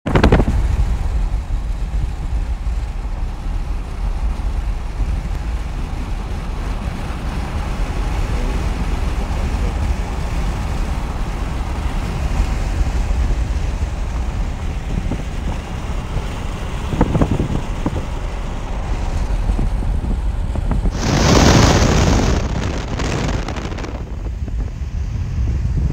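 Road noise and wind buffeting on the microphone from a moving car: a steady low rumble and hiss, with a louder rushing surge of wind near the end.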